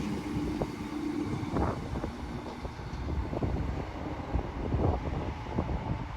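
Train rumbling at a station, with a steady hum that fades out about a second and a half in. Low rumble and wind buffeting on the microphone follow.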